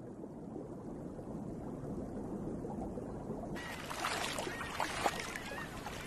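Shallow seawater sloshing and gurgling, muffled at first, then suddenly brighter and splashier about three and a half seconds in, as at the water's surface.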